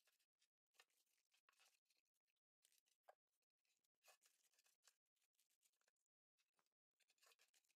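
Near silence, with a few faint, short rustles and clicks from wet parchment paper being pressed into a metal loaf pan held by binder clips.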